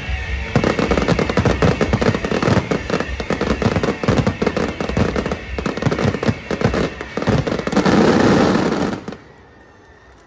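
Fireworks finale barrage: a dense run of aerial shell bursts and launches, many sharp bangs a second, swelling into one loud continuous crackling wash that stops suddenly about nine seconds in.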